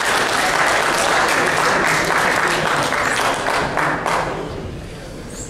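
Spectators applauding after a point in a table tennis match, a dense patter of clapping that fades out over the last second or so.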